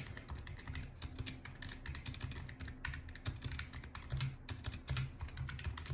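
Typing on a computer keyboard: a quick, uneven run of key clicks as a short phrase is typed.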